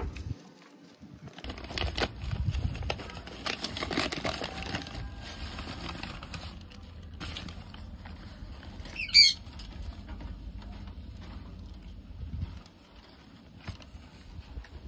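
Scratching and rustling on cardboard and paper in a hamster's box, starting about a second and a half in and dying away near the end. A single short high chirp cuts through about nine seconds in.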